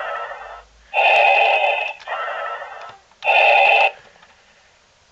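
Electronic Darth Vader helmet toy playing its breathing sound effect, set off from the buttons on its chest panel: four hissing breaths alternating in and out, stopping about four seconds in.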